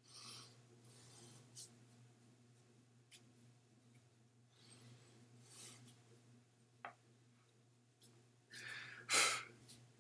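Quiet wordless sounds from a person close to the microphone: a few short, noisy breaths or rubbing sounds, the loudest just after nine seconds in, over a steady low hum.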